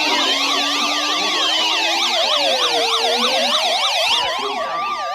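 Several electronic siren tones layered together: a slow wail rising and falling over about four seconds under fast up-and-down yelp sweeps at several pitches.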